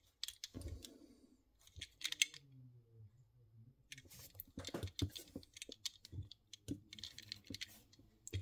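Light clicks and rustles of hands handling small 1/64-scale diecast model cars and setting them down on a plastic diorama base, with a run of clicks about halfway through.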